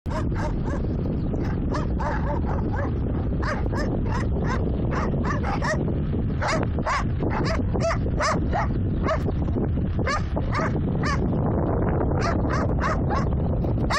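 A dog yipping and barking over and over, two or three short yelps a second, over a steady low rumble from the moving vehicle.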